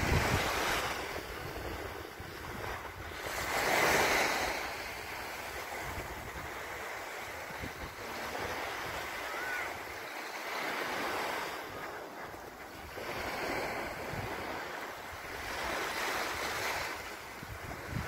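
Small waves breaking and washing up a sandy beach, the surf swelling and falling back every few seconds, loudest about four seconds in.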